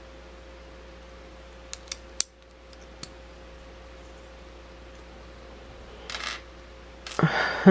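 Small plastic LEGO bricks clicking and clattering as a hand rummages through a pile of loose pieces: a few sharp clicks about two seconds in, a short rustle near six seconds, and louder sounds near the end.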